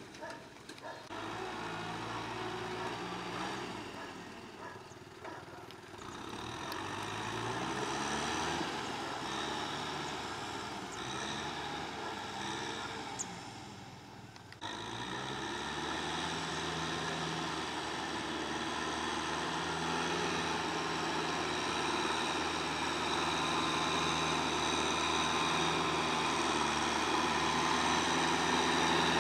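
Kubota M6040SU tractor's four-cylinder diesel engine running under work, its pitch rising about a quarter of the way in. After a sudden cut about halfway, the engine runs steadily and grows louder as the tractor comes closer.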